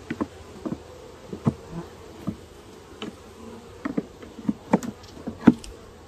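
A metal hive tool prying and scraping at wooden hive frames: a string of irregular knocks and cracks, loudest near the end. Under it, the steady buzzing hum of honey bees.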